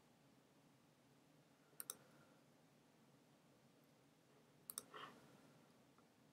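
Two quick double clicks of a computer mouse, about two seconds in and again near five seconds, against near silence.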